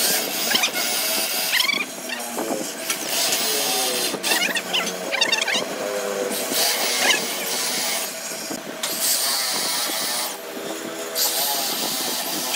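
Handheld electric drill boring into a wood slab with a wide flat-bottomed bit, chips ripping off over a motor whine that rises and falls in pitch. It stops briefly a few times between holes.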